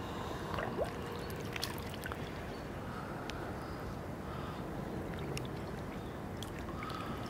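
Lake water trickling and lapping as a carp is lowered back into the margin, a steady low wash with a few faint ticks.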